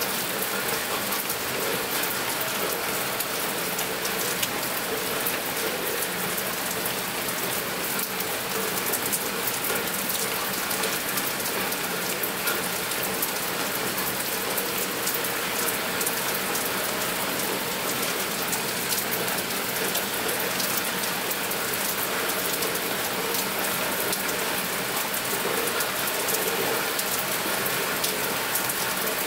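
Steady rain falling, a dense, unbroken patter of drops.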